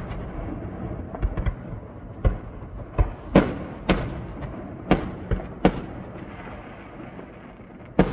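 Aerial firework shells bursting overhead: a string of about nine sharp bangs, several in quick succession, each trailing off in a short echo.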